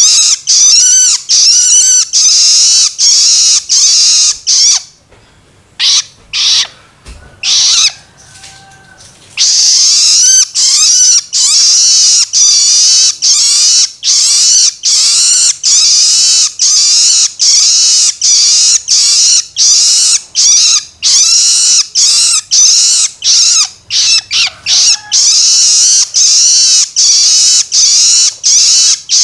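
Young long-tailed shrike (cendet) giving harsh, rasping begging calls, loud and repeated a couple of times a second, with a brief lull of a few seconds about five seconds in.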